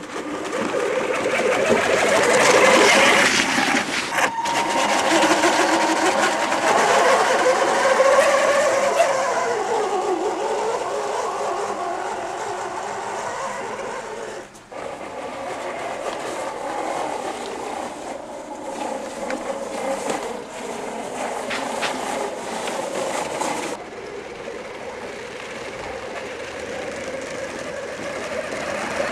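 Whine of the 540-size electric motor in a radio-controlled Hummer H1 driving through snow, its pitch rising and falling with the throttle. It cuts out briefly twice.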